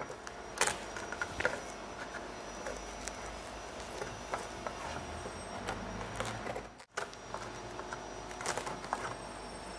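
Scissors snipping and the soft rustle of a sanitary napkin's layers being cut open and handled, a few sharp clicks over a faint steady hum.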